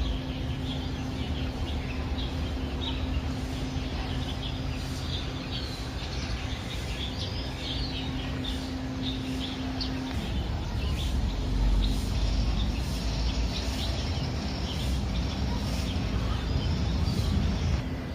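Small birds chirping over a low outdoor rumble, with a steady low hum that stops about ten seconds in.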